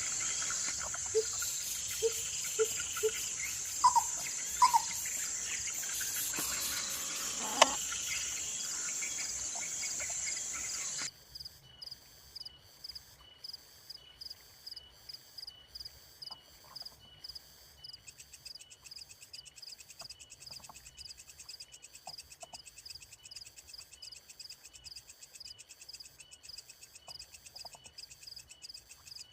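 Insects trilling steadily, with a few short low calls in the first few seconds. After a sudden cut about eleven seconds in, the sound is quieter: a cricket chirping in an even rhythm, about two chirps a second.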